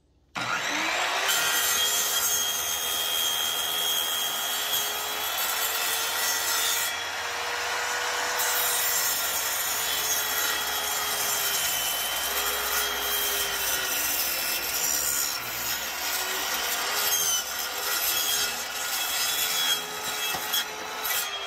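Sliding compound miter saw starting up about half a second in and cutting through a clamped stack of faux wood (vinyl) blind slats, the motor's pitch wavering under the load as the blade is fed down. It winds down near the end.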